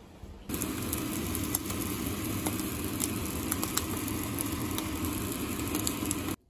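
Imitation crab sticks sizzling in a frying pan: a steady hiss dotted with sharp crackles. It starts abruptly about half a second in and cuts off just before the end.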